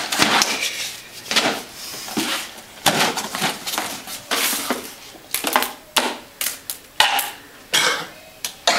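Cardboard box being pulled open and rummaged through by hand: an irregular run of rustles, crinkles and knocks.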